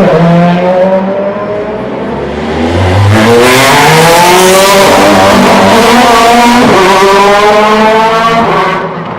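DTM race car's 4-litre V8 at full throttle. The engine note dips about two seconds in, then climbs through the gears with an upshift about seven seconds in, and fades near the end.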